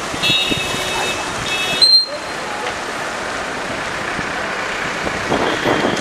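A high-pitched electronic tone from a vehicle on the dam road sounds twice, a longer note and then a short one. After a cut, steady rushing noise of floodwater pouring past the dam follows.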